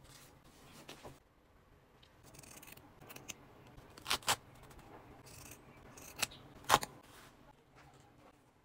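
Hands handling craft materials: soft rustling of fabric and plastic, with four sharp clicks in two quick pairs, about four and about six and a half seconds in.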